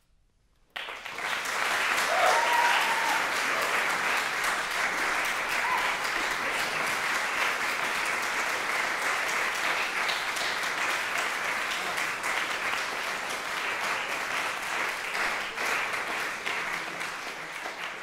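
A moment of near silence, then audience applause starts suddenly about a second in and carries on steadily.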